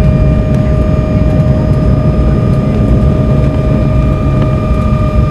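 Jet airliner's engines heard from inside the cabin during the landing rollout: a loud, steady rumble with a whine that sinks slowly in pitch as the aircraft slows on the runway with its spoilers up.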